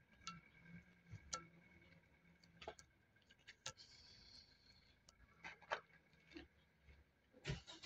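A cat gnawing a cooked chicken bone: faint, irregular crunching clicks and scrapes of teeth on bone, a few every second or two.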